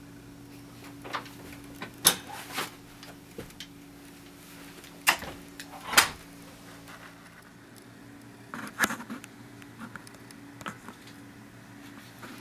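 Scattered sharp knocks and clicks, the loudest about two, five and six seconds in and a short cluster near nine seconds, over a steady low hum.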